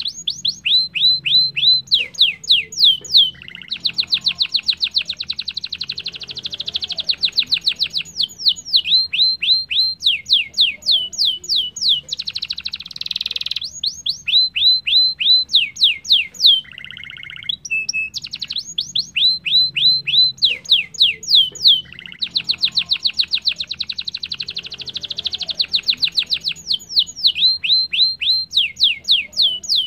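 Domestic canary singing a long song: runs of rapid downward-sweeping whistled notes, several a second, alternating with dense rolling trills, with brief pauses between phrases.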